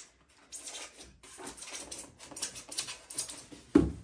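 Packing material rustling and crinkling in a run of handling noises as parts are pulled out of a sewing machine's box, with one dull thump near the end.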